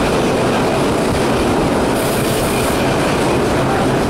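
Vintage IRT Lo-V subway car (built 1916–1925) under way, heard from inside the car: loud, steady running noise of wheels on rails.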